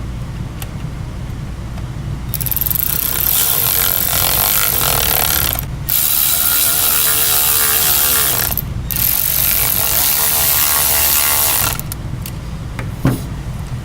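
A screw-driving tool running the fuel pump assembly's screws in: a fast mechanical ratcheting whir in three runs of about three seconds each, with short breaks between them.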